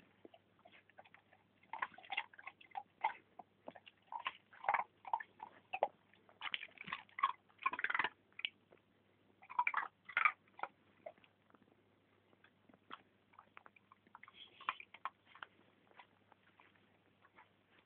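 A dog chewing and crunching crushed ice in quick, irregular crunches. The crunching is dense for about the first eleven seconds, then thins out to a few faint ones.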